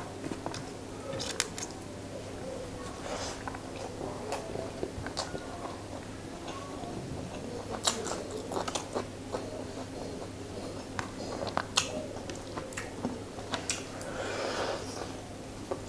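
Close-up mouth sounds of eating curry and rice by hand: frequent wet smacking clicks and chewing, with a denser crunching stretch near the end as a piece of fried fish is bitten.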